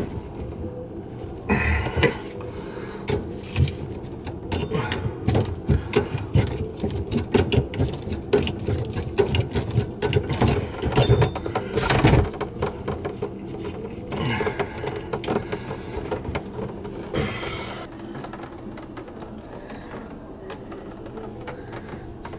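Irregular knocking, clicking and rattling of metal plumbing fittings and tools being handled under a kitchen sink, busiest in the first two-thirds with one sharp knock about halfway through, then settling to a low steady hum with a few taps.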